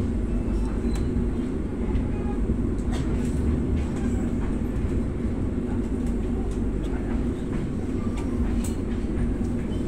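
Steady low rumble of a passenger train running over the tracks, heard from inside the carriage, with occasional faint clicks.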